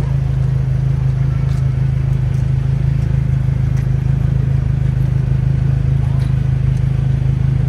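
An engine running steadily at idle: a constant low drone with a fast, even pulse, unchanged throughout.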